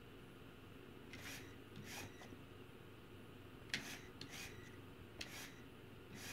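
Faint short scraping rubs, about half a dozen, as the front wheels of a LEGO Technic Porsche 911 GT3 RS (42056) are steered back and forth, with a couple of sharp little clicks from the plastic steering parts.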